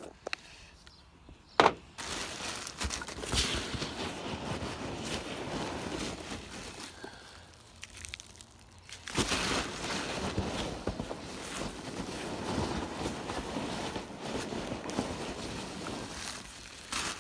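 Hands rummaging through a cardboard box full of foam packing peanuts and plastic wrap: steady rustling and crinkling, with one sharp click about a second and a half in and a short quieter lull around eight seconds.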